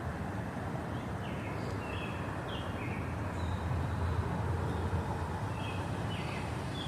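Birds giving short, high chirps, each falling slightly in pitch, in a run about a second in and another near the end, over a steady low rumble.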